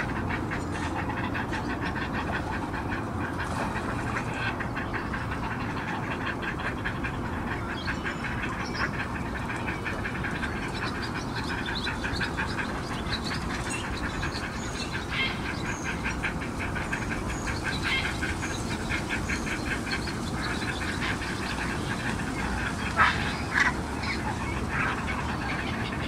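Ducks quacking in quick repeated runs over a steady low background rumble, with two sharp knocks about 23 seconds in.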